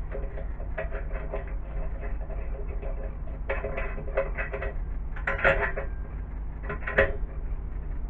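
Light metallic clinks and scrapes of hand tools against a steel linear-rail carriage and aluminium plate, coming in irregular clusters, with the sharpest clinks about five and a half and seven seconds in, over a steady low hum.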